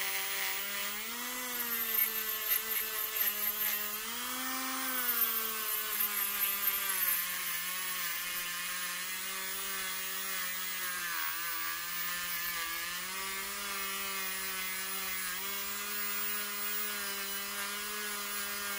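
Worx WX739 MakerX brushless rotary tool running at minimum speed with a small bit pressed against a metal ring, scouring off burnt tarnish. Its steady whine holds pitch under load, rising briefly twice in the first five seconds, with scraping of the bit on the metal in the first several seconds.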